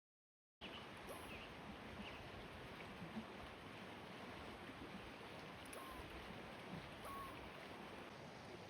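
Steady running water of a mountain creek, cutting in abruptly about half a second in, with a few faint short chirps over it.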